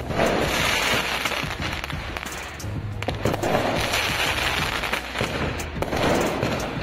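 Firecrackers going off in dense crackling volleys, swelling loud three times, with music underneath.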